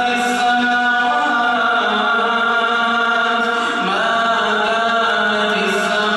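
A male imam reciting the Quran aloud in prayer: a melodic Arabic chant with long held notes, sliding to a new pitch about four seconds in.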